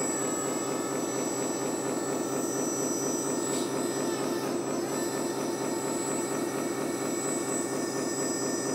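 Scale RC dump truck's electric hydraulic pump whining steadily as it raises the tipper bed, over the sound module's simulated diesel engine running in an even rhythm through a small speaker.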